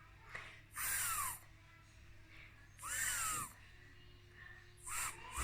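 A woman's voice repeatedly pronouncing the phonics sound "th", a breathy hiss made with the tongue between the teeth. There are three short bursts about two seconds apart, the last one near the end and briefer.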